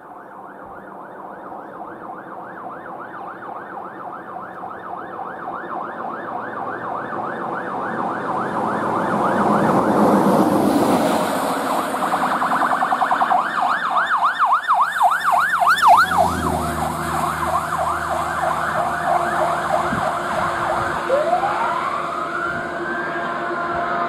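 Fire engine siren in a fast yelp, growing louder as the 2005 Freightliner/American LaFrance pumper approaches and passes, with the truck's engine heard as it goes by. Near the end the siren changes to a slow wail, one long rise and fall.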